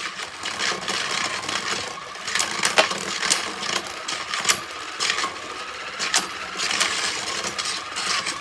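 Two plastic-and-metal Beyblade Burst QuadStrike spinning tops whirring around a plastic stadium, with repeated sharp clacks as they collide and a steady whine from the stadium's motor underneath. The round ends in a spin finish.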